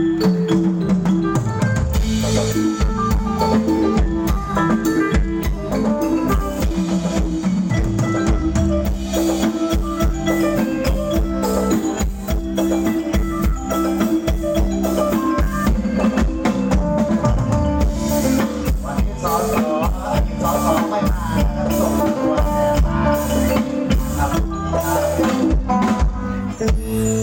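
Band music with a drum kit, bass drum and snare keeping a steady beat under sustained keyboard-like notes.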